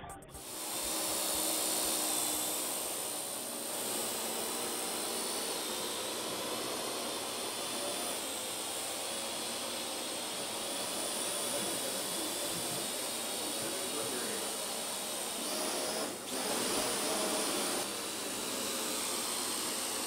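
Parrot AR.Drone 2.0 quadcopter flying, its four small electric motors and propellers giving a steady high whine over a rushing hiss. The sound dips briefly about sixteen seconds in.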